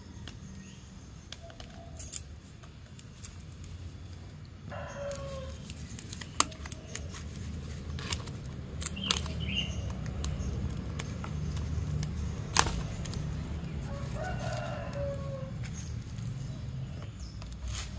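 A rooster crowing twice, once about five seconds in and again near the end, each crow falling in pitch, over a low steady hum. A few sharp clicks sound in between.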